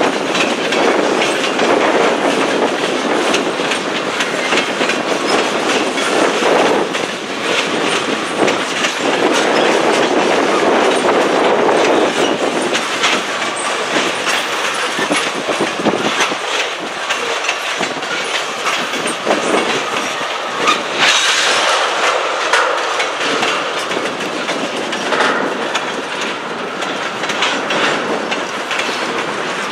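Railroad tank cars rolling past, their steel wheels clicking over the rail joints with a steady rolling noise; the noise grows brighter and sharper for a moment around the middle.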